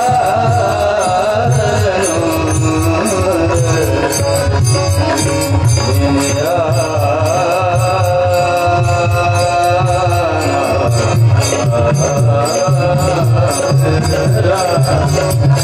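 Devotional kirtan singing: a high solo voice holding long, wavering notes, over a steady drum beat and the regular ring of small hand cymbals.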